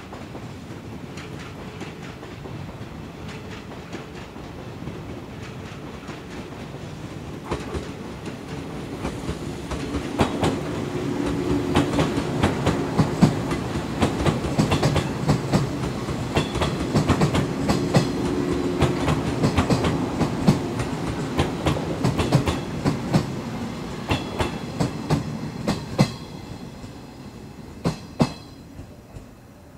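JR 115-series electric train rolling slowly past on jointed track, its wheels clicking over rail joints and points, with a low hum that comes and goes. It grows louder toward the middle, then fades as the train moves off near the end.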